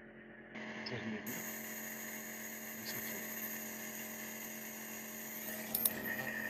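Compressor nebulizer running: a steady motor hum with a hiss of air through the medicine cup as it turns saline into mist. It comes in about half a second in and then holds steady.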